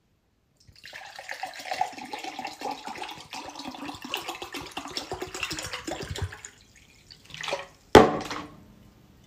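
Blue liquid poured from a plastic bottle into a tall drinking glass, splashing steadily for about six seconds as the glass fills. A sharp knock comes near the end.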